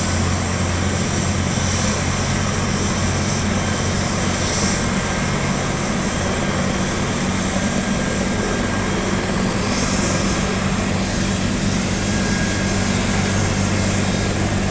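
Air ambulance helicopter running on the ground with its main rotor turning: a steady, even drone with a constant low hum and a thin high whine over it.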